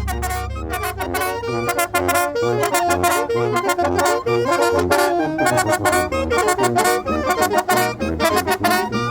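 Traditional Mixtec brass band (banda mixteca) playing, with saxophones, trumpets and trombones carrying the tune over a bass line that changes note about twice a second, and regular percussion strokes keeping the beat.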